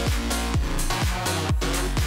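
Electronic music with a steady beat, about two beats a second, over a stepping bass line.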